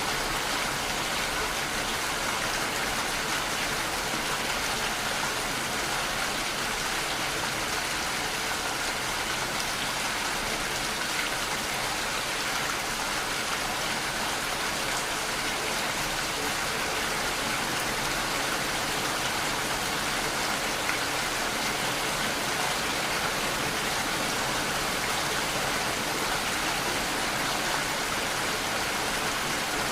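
Steady, unbroken rushing-water sound with the hiss of rain, even in level throughout.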